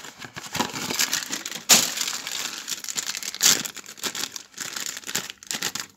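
Foil blind-bag packaging crinkling and crackling as it is handled and opened, with two louder crackles, one just under two seconds in and one about three and a half seconds in.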